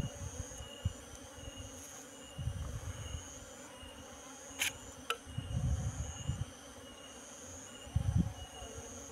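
High insect trill that switches on and off every second or so, among honeybees swarming over freshly cut wild comb. Low bumps and rustles come and go, and there is one sharp click about four and a half seconds in.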